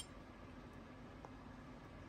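Near silence: faint room tone, with one very faint tick about a second in.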